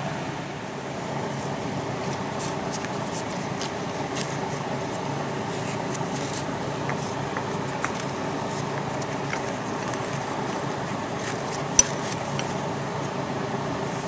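Nylon seatbelt webbing and a metal strap bracket being handled, giving faint scattered rustles and ticks, with one sharp click near the end. A steady mechanical hum runs underneath.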